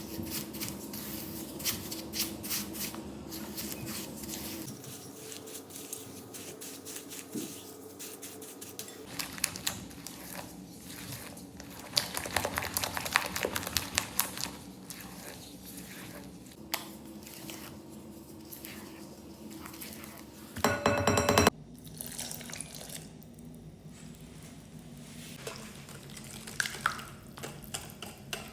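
Kitchen utensils clinking and scraping against bowls and dishes in irregular clicks, with a brief louder burst a little over twenty seconds in.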